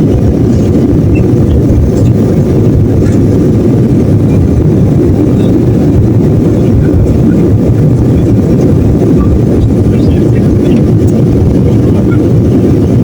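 Steady, loud low rumble of an airliner's cabin with its engines running, unchanging throughout.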